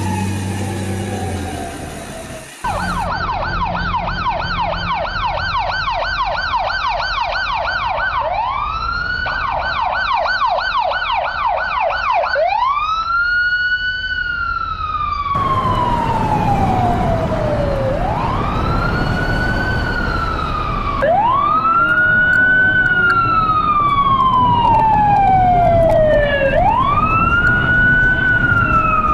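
Electronic emergency-vehicle siren. A slow wail is followed from about three seconds in by a fast yelp of about two to three up-and-down sweeps a second. From about twelve seconds in it goes back to slow wails, each rising quickly and falling away over about five seconds.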